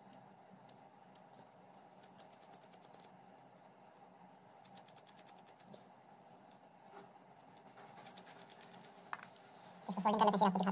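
Faint small handling noises, with three short runs of quick, fine ticking as fingers work a thin wire, and a single sharper click a little before the end.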